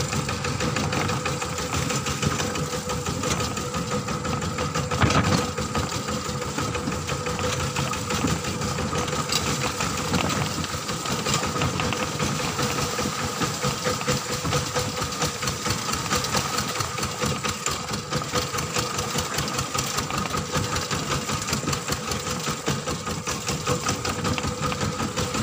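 Kubota ZT140 horizontal single-cylinder diesel engine on a two-wheel walking tractor running steadily under way, with a fast even knocking beat. A single louder knock stands out about five seconds in.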